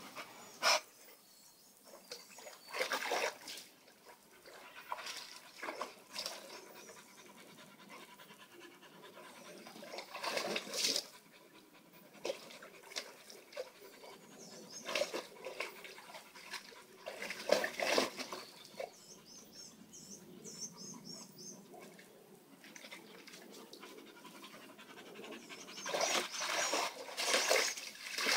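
Dog panting in repeated bursts of breath. Near the end, water sloshes and splashes as a dog moves about in a plastic kiddie pool.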